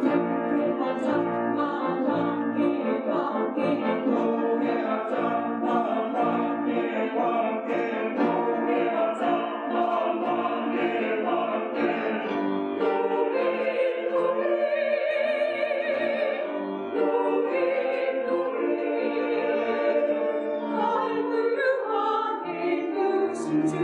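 Church choir singing a choral anthem with instrumental accompaniment.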